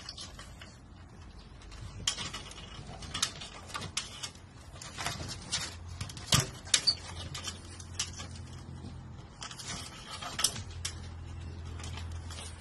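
Scattered sharp taps and scratches, a French bulldog's paws and claws scrabbling against a slatted fence, over a steady low hum.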